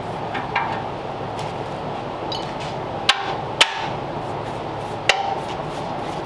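Three sharp hammer blows on metal: two about half a second apart, then a third about a second and a half later that rings briefly. A steady hum runs underneath.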